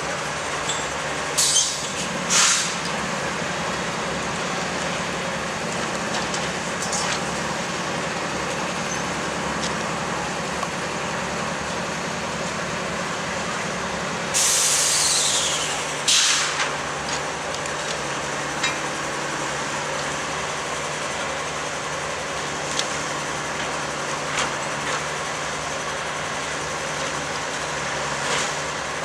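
Track maintenance machinery running with a steady engine hum, with a few sharp metallic clanks. About halfway through, a loud hiss of air lasts about two seconds.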